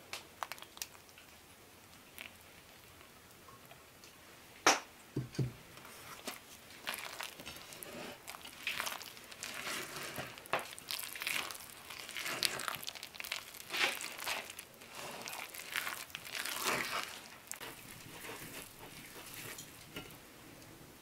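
A wooden spoon stirring a stiff batter of flour, egg and melted butter in a ceramic bowl: an irregular run of scraping, crunching strokes. A few light clicks come first, and a single sharp knock about five seconds in.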